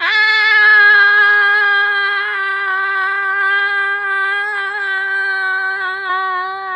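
One long, loud, steady vocal 'aah' held on a single high pitch without a break, starting suddenly and wavering only slightly.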